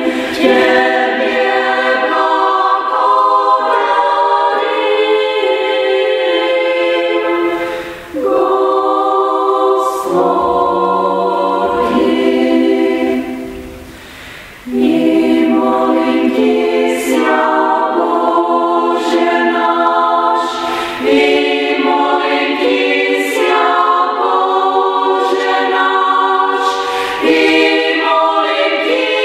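Women's choir singing a cappella in phrases, with a short break about eight seconds in and a longer pause about halfway through before the singing resumes.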